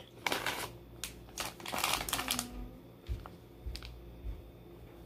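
Soft plastic pack of makeup wipes crinkling as it is handled, in several short rustling bursts during the first two and a half seconds, followed by a couple of light clicks.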